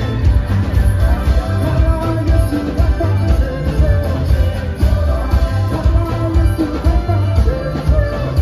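Loud, upbeat live band music with singing over a heavy, steady bass beat.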